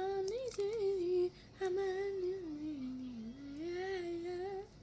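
A young girl's voice singing made-up nonsense words in a wandering, sing-song tune, in two phrases with a short break just over a second in; the pitch dips low in the middle of the second phrase and then rises again.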